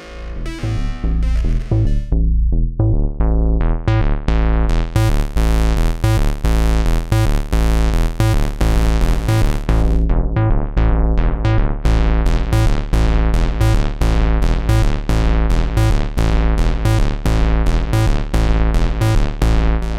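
A sequenced synthesizer pattern from a Reason+ sound pack instrument, with fast repeating notes over a deep, steady bass. Brighter high notes build in over the first few seconds and drop out briefly about halfway through.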